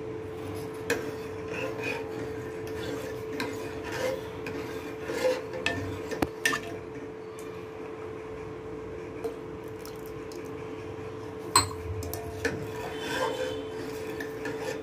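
Steel ladle stirring agar-agar and coconut milk in an aluminium pot, scraping along the pot with now and then a sharp click of the ladle against the metal. A steady hum runs underneath.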